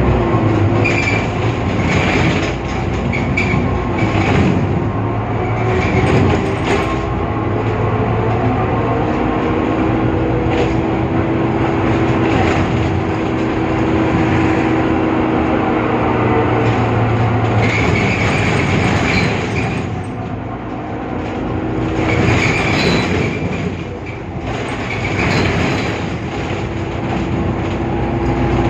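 Irisbus Citelis CNG city bus with its Cursor 8 gas engine running and moving: steady running noise with a whine that slowly rises and falls in pitch, plus rattling and short high squeals several times.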